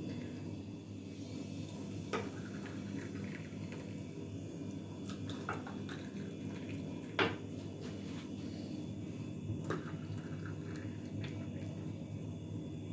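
Tea poured from a teapot into glass tea cups, with a few sharp clinks of glass and teapot, the loudest about halfway through.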